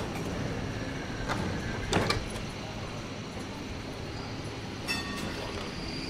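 VBZ Flexity tram running, a steady rumble with a few sharp clicks and clunks, the loudest about two seconds in and another with a brief tone near five seconds.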